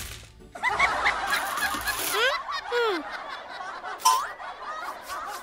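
A cartoon character's high-pitched giggling and chattering: a dense run of short calls that glide quickly up and down in pitch.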